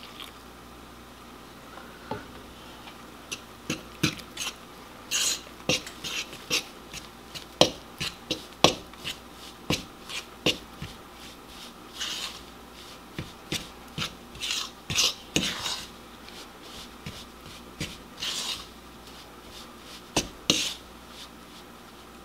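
A fork stirring broth into flour and shortening in a bowl, scraping and clicking against the bowl's sides in irregular strokes as the dumpling dough comes together. The scrapes come in short bursts for most of the time and die away near the end.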